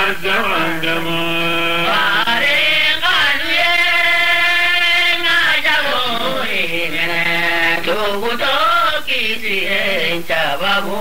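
Chanted singing: a voice drawing out long held notes and sliding in pitch between them, with one note held steady for about two seconds in the middle.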